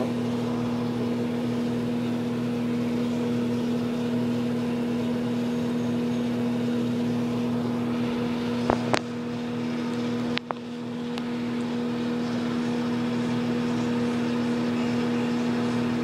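Microwave oven running with a steady electrical hum. A couple of sharp clicks come about nine seconds in, and the hum dips briefly about ten seconds in.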